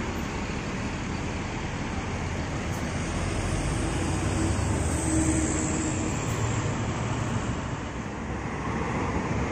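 Diesel engine of a large intercity coach pulling away from the stop, with road traffic. The rumble swells about halfway through, then eases.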